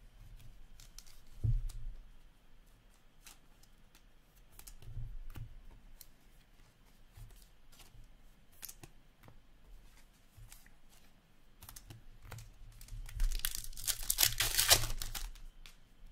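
Trading cards handled on a tabletop, with scattered small clicks and a couple of dull thumps. Near the end comes a loud crinkling rip of a card pack's wrapper being torn open.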